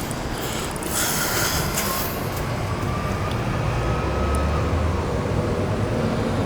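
Wind and distant city traffic on an open-air rooftop deck: a steady noisy rumble that swells about four seconds in.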